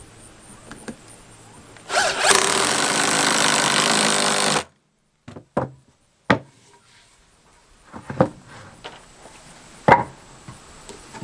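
Cordless drill running for about three seconds, driving a screw into 2x4 lumber for a window header. A few separate wooden knocks follow as the boards are handled on the bench.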